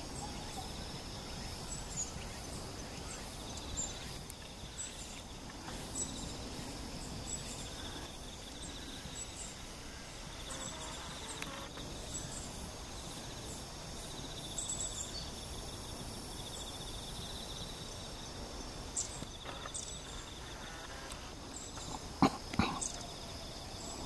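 Small birds in the treetops giving short, high chirps now and then over a steady, pulsing insect trill. Two sharp knocks near the end.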